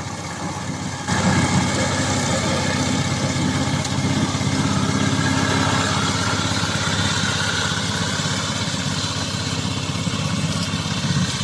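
The 16 HP gasoline engine of a crawler-type remote-controlled slope mower running steadily, stepping up in loudness about a second in.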